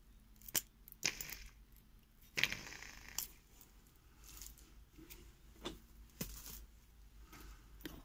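Scattered clicks, taps and rustles from handling a plastic washing-machine drain pump and its loose test wires, about six short sounds spread through otherwise quiet seconds.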